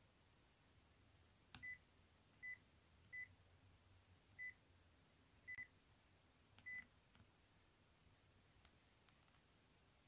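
Key beeps of a Panasonic P504i flip phone as its menu keys are pressed: six short, high, single-pitch beeps at uneven intervals, with a few faint key clicks.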